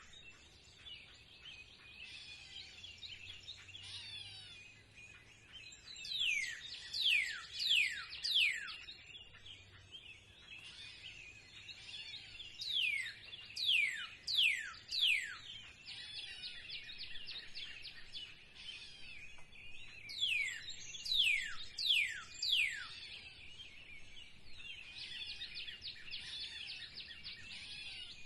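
Songbirds singing in spring. One bird repeats a phrase of four or five steeply falling whistled notes about every seven seconds, over steady twittering from other birds.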